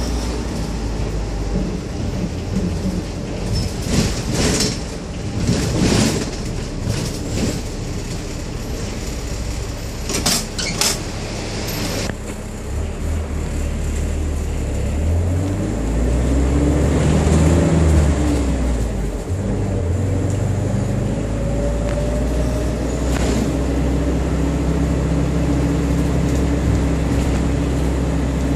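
Interior of a Hong Kong public light bus (minibus) under way: a steady engine drone whose pitch rises and then falls again in the middle as the engine revs and settles. Several sharp knocks and rattles come in the first dozen seconds.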